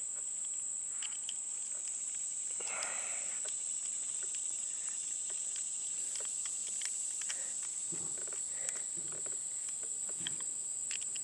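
A steady, high-pitched chorus of insects such as crickets, with scattered light clicks and taps of small metal cable-clamp hardware being handled.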